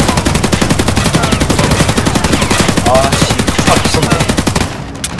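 A long, rapid burst of machine-gun fire that cuts off abruptly near the end, as the ammunition runs out.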